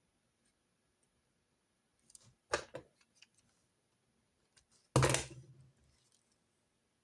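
Two handling knocks of small objects on a desk, with a few light clicks in between: a sharp clatter about two and a half seconds in, then a louder knock with a low thud about five seconds in that dies away over a second.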